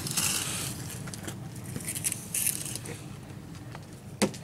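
A Champion 3500-watt dual fuel inverter generator being wheeled across concrete, its wheels rolling and scraping in bursts, with one sharp knock about four seconds in.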